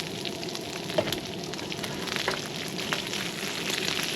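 Sausage and bacon sizzling and crackling in grease on a camp grill, with a few light clicks.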